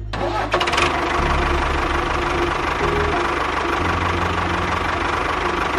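Miniature toy tractor running as it drives along, a steady mechanical drone that sets in with a few clicks in the first second.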